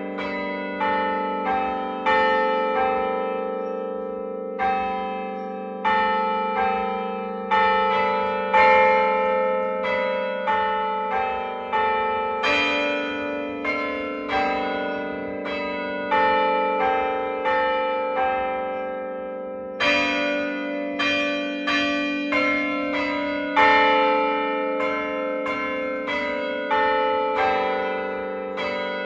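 Church tower bells of several pitches struck one after another, about one to two strokes a second, each note ringing on under the next.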